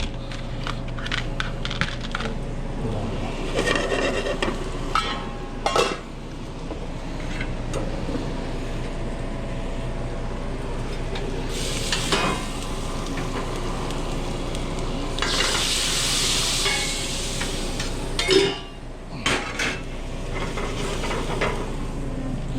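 Cooking on a busy restaurant line: pans, dishes and utensils clattering and food sizzling over a steady hum. A loud hiss lasts about a second and a half around two-thirds of the way through, followed by a sharp knock.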